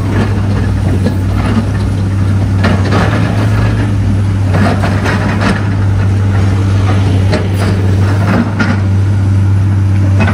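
Komatsu hydraulic excavator's diesel engine running with a steady low drone, with scattered knocks as its bucket works in rock and soil.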